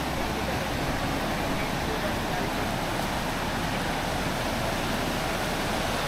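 Steady rushing of water from the upper reach of a small waterfall.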